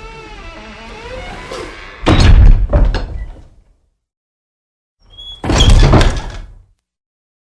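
Door hinges squealing with a wavering, shifting pitch as the door swings, then the door shutting with a loud bang about two seconds in. After a short silence, another loud door bang about five seconds in.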